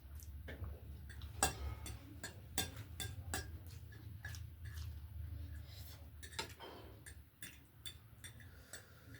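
Close-up eating sounds: irregular wet clicks and smacks of chewing, over a steady low hum.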